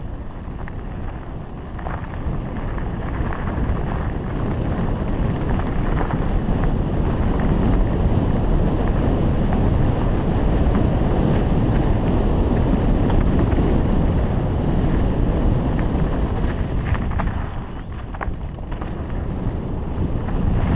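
Wind rushing over the microphone of a mountain bike rider's camera, mixed with the bike's tyres rumbling over a dirt trail. It swells louder from about a third of the way in and eases near the end, with a few sharp clicks and rattles from the bike.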